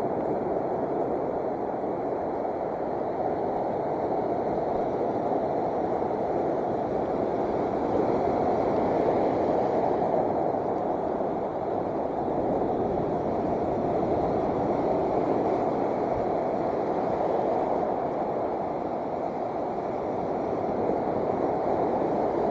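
Steady, dull rushing of wind and breaking surf, even and unbroken throughout.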